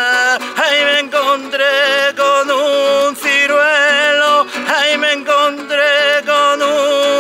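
A man singing a Spanish children's song in held, wavering notes, accompanying himself by strumming a nylon-string classical guitar.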